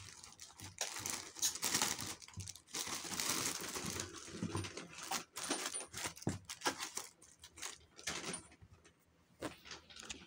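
Plastic and paper wrapping crinkling and rustling in irregular bursts as a pair of sandals is pulled out of it, with a short lull near the end.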